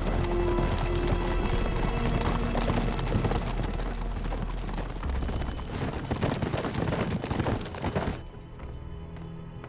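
Horses' hooves clattering as riders pass, over background music. The clatter stops suddenly about eight seconds in, leaving only low, steady music.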